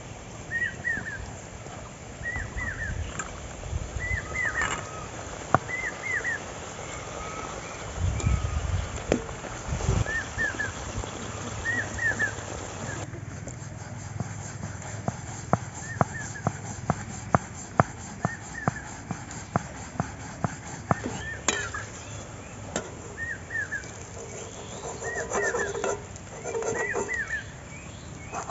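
A bird repeating a short chirp about once a second, over a wooden rolling pin knocking and clicking against a wooden board as dough is rolled out, with a run of sharp clicks, two or three a second, in the middle.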